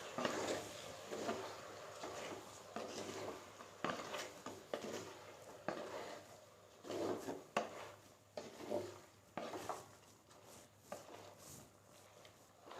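A spoon stirring chicken pieces in a cooking pan, with faint, irregular scrapes and light knocks against the pan.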